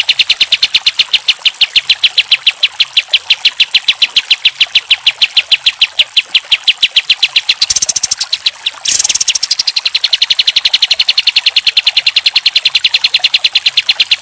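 Olive-winged bulbul (kapas tembak) singing a long rapid-fire string of high repeated notes, about six a second, briefly broken about eight seconds in.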